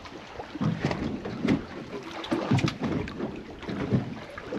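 Water slapping against the hull of a small boat on a choppy sea, in irregular splashes about once a second, with wind on the microphone.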